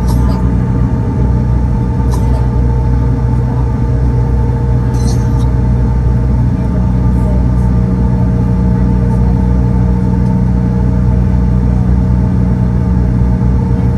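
Cabin noise of a Bombardier CRJ-900 taxiing: a steady low rumble and whine from its rear-mounted General Electric CF34 turbofans at taxi power. A few faint light clicks or rattles come near the start, about two seconds in and about five seconds in.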